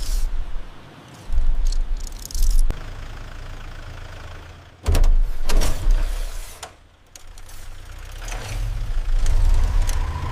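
Cinematic sound effects: several sudden heavy hits with deep booming rumble, sharp mechanical clanks and hiss between them, typical of a robot transformation or fight sequence.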